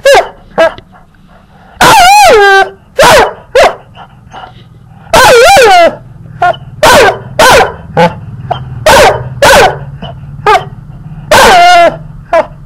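Golden retriever vocalising in a quick string of short yips and barks mixed with a few longer, wavering whine-howls, very loud and clipping close to the microphone.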